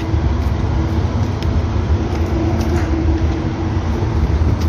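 Steady low background rumble with a faint hum and a few light clicks.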